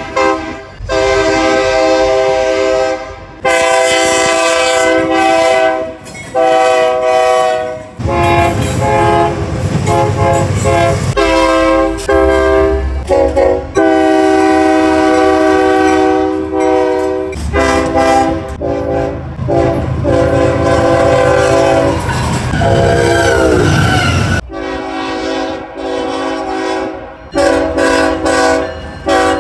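Locomotive air horns blowing a run of long and short blasts, each a chord of several tones, in a string of separate clips. At times the low rumble of a passing train runs under the horn. About three-quarters of the way through, one horn drops in pitch as the train goes by.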